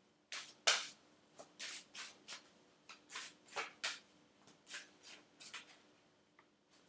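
A deck of oracle cards being shuffled by hand: a run of short, irregular card swishes, about a dozen and a half over five seconds, stopping about a second before the end.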